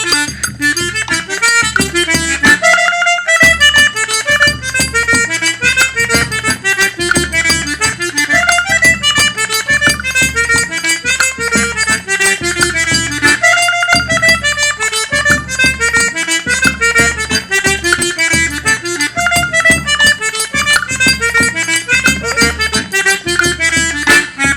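Eight-bass diatonic button accordion (sanfona de 8 baixos) playing a fast northeastern Brazilian tune: quick runs of melody notes over an evenly pulsing bass. The playing breaks off briefly about three seconds in, then carries on.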